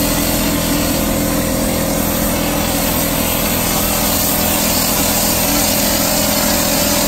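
Cork spray rig's compressor running steadily, with a constant hiss of air and cork material blown from the spray gun.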